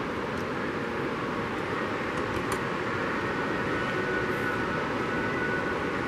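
Ocean surf breaking on a beach: a steady, even roar of waves.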